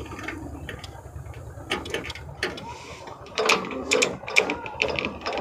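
Scattered mechanical clicks and knocks from a tractor's controls being handled in the driver's seat, with no clear engine running.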